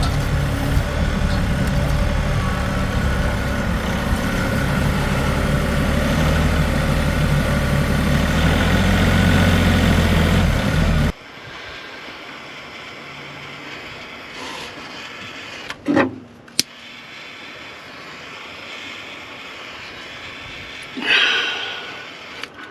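KIOTI NS6010 compact tractor's diesel engine idling steadily. About eleven seconds in it cuts off suddenly, leaving a quiet background with a couple of sharp clicks.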